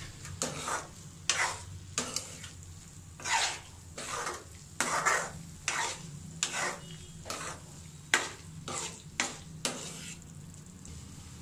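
Steel spoon stirring and scraping chunky vegetables in a thick masala paste around a nonstick frying pan, about one and a half strokes a second, with a short lull near the end.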